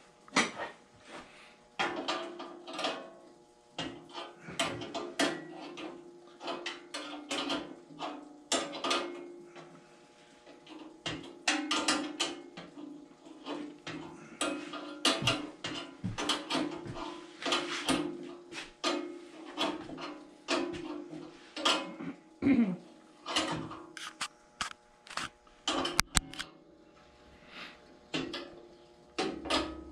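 Irregular metallic clicks and clinks of a wrench and pliers working the bolts on a Delta 14-inch bandsaw's wheel housing, over a steady low hum.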